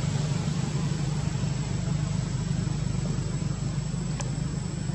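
Steady low engine hum, like a motor vehicle idling, with a constant hiss and a thin, high, steady tone above it.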